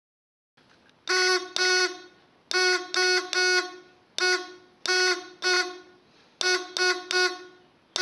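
A small battery buzzer inside a homemade Morse practice key beeps each time the key is pressed, giving a steady buzzy tone that starts and stops cleanly. The beeps come in four groups, long and short, that spell M, O, R, S in Morse code: two long, three long, long-short-long... wait, short-long-short, then three short.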